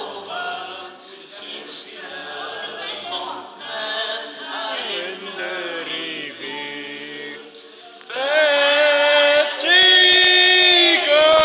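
A small group of women singing a song together, getting much louder about eight seconds in.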